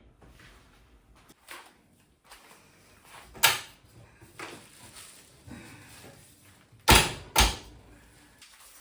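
Household knocks and bumps: scattered faint clatter, a sharp knock about three and a half seconds in, and two loud knocks in quick succession near the end, like a door or cupboard being shut.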